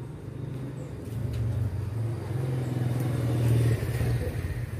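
A motor running with a low, steady hum that grows louder toward the middle and eases near the end.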